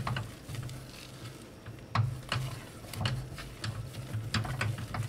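Wooden spoon stirring a thick, half-melted cheese curd in a nonstick pot, with scattered knocks and scrapes of the spoon against the pot. The loudest knock comes about two seconds in. A low steady hum runs underneath.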